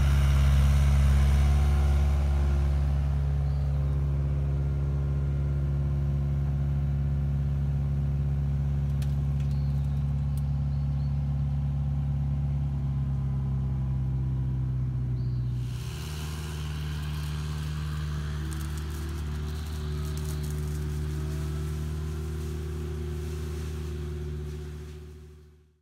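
A compact excavator's diesel engine and hydraulic flail mower running with a steady drone. Its pitch shifts about 16 seconds in, and it fades out at the end.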